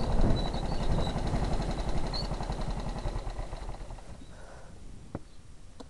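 Kart engine chugging at low revs with a rapid, even pulse, fading away over the first four seconds. A single sharp click near the end.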